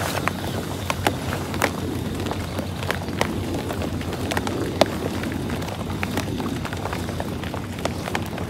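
Light rain pattering: many scattered drops ticking irregularly over a steady low rushing noise.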